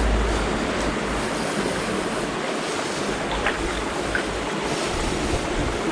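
Fast-flowing river rushing steadily, with low wind rumble on the microphone in the first second.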